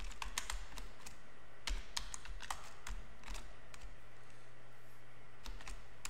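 Computer keyboard keystrokes as code is typed, in short irregular runs, with a pause of about two seconds past the middle before typing resumes.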